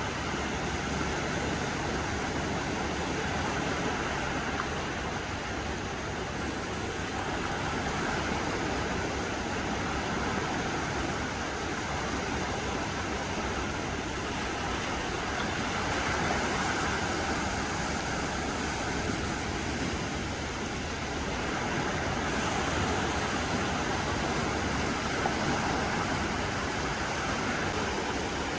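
Calm sea waves washing onto a sandy beach, with wind blowing, making a steady rushing hiss that swells gently now and then.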